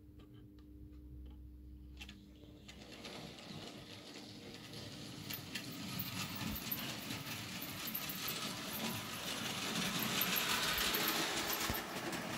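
Model railway locomotive, a model of Bluebell, running on its track pulling wagons: a small electric motor whirring and the wheels rattling along the rails. It starts about three seconds in and grows steadily louder.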